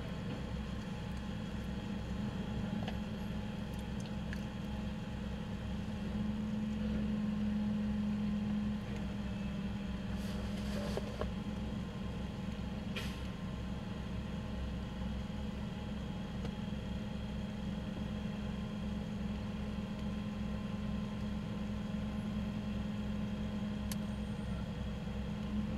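Rear-loading garbage truck's diesel engine running steadily, rising in level for a few seconds about six seconds in. A brief hiss comes about ten seconds in, and a sharp click near thirteen seconds.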